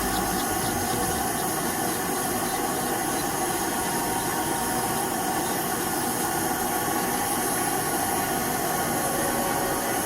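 Electric nail drill for toenail scaling running steadily, a constant whir with a hiss over it.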